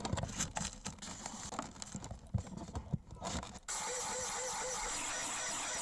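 Crinkling and rustling of plastic packaging being handled. About three and a half seconds in, an aerosol can starts a steady hiss: the bait package's fart spray going off.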